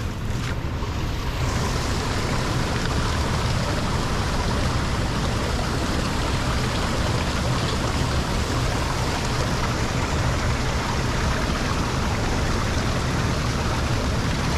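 Steady rush of water flowing into a lake drain through its debris-choked grate.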